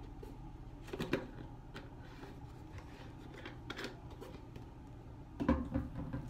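Plastic Fabuloso cleaner bottle crinkling and clicking as it is squeezed and tipped to pour, in scattered sharp crackles. A louder, deeper thump comes about five and a half seconds in.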